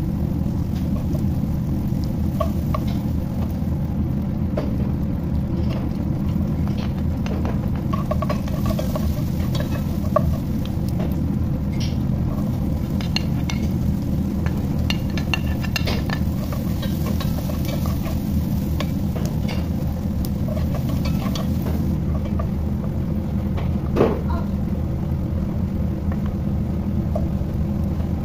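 Butter and chopped onion sizzling and crackling in a nonstick pot as they are stirred, over a steady low rumble. Two sharp knocks of a utensil on the pot, about ten seconds in and again near the end.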